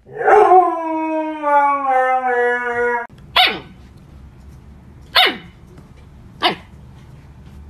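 A husky's long howl, falling slowly in pitch and cut off after about three seconds; then a husky puppy gives three short yips about a second and a half apart, each dropping in pitch, as a hand presses on its head.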